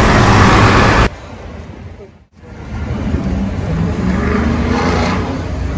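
City bus passing close by, a loud engine and road noise that cuts off abruptly about a second in. After a brief drop to near silence, steady street traffic rumble fades back in.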